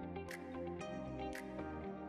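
Instrumental background music with held tones and a light percussive hit about once a second.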